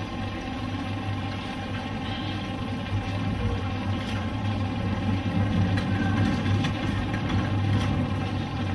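Steady low droning hum, with a few faint knocks.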